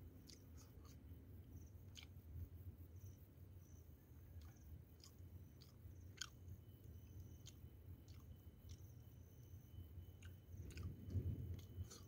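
A person chewing and eating food, faint and close, with many small irregular mouth clicks.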